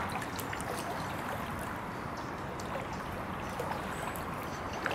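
Steady hiss of running floodwater, with a few faint scattered ticks.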